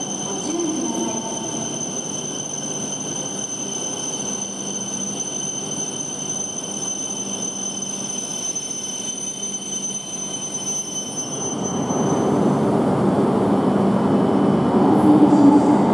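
E5-series Shinkansen train running slowly along a station platform, with steady high-pitched whining tones over a low rumble. From about twelve seconds in the whine fades and the train noise grows louder.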